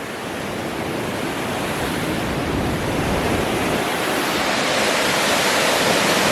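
Waterfall rushing in a steady roar of falling water, growing gradually louder.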